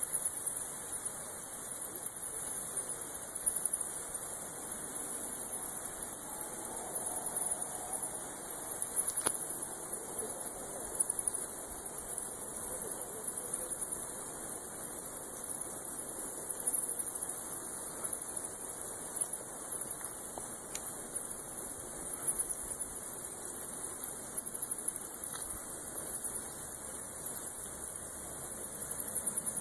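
A huge swarm of bats streaming out of a cave, their many high-pitched squeaks merging into a dense, unbroken chatter.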